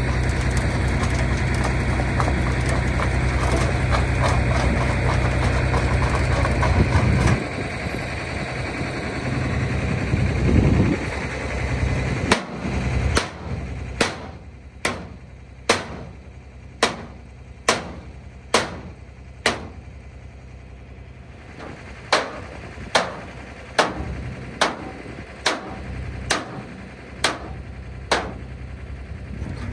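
A truck engine running steadily, cutting out after about seven seconds. Then sharp hammer blows, roughly one a second, about seventeen in two runs with a short pause between them.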